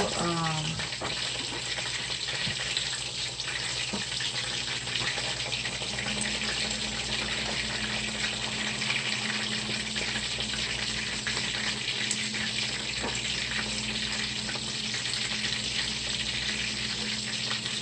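Mashed-potato patties sizzling and crackling steadily as they fry in oil in a nonstick pan. A low steady hum joins about six seconds in.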